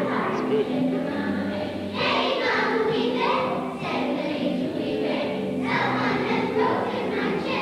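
A children's choir singing a song in phrases of about two seconds, with held notes.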